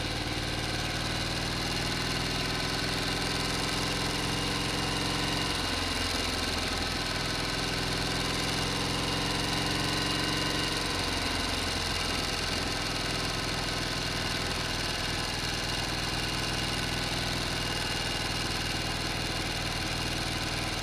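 A motor running steadily with an even, many-toned hum. Its pitch shifts slightly a few seconds in and again about halfway through.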